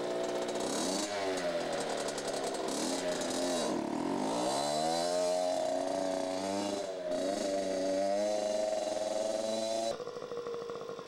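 Small mini dirt bike engine revving, its pitch dipping and climbing again several times as the rider pulls away and rides off. About ten seconds in it cuts abruptly to a quieter, steady engine note.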